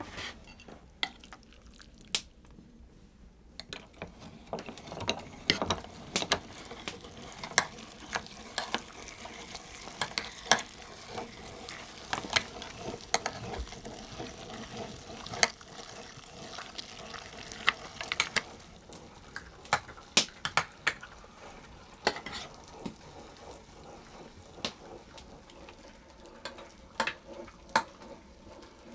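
A utensil scraping, stirring and clinking in a cooking pan in quick, irregular strokes as food is served, over a faint frying sizzle that is strongest through the middle.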